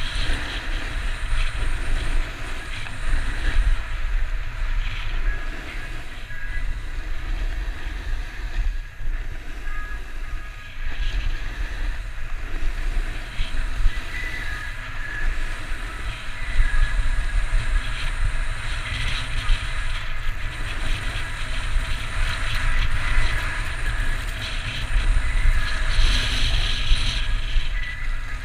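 Skis scraping and hissing over hard-packed snow at speed, with wind buffeting the microphone as a steady low rumble. The scraping grows louder near the end.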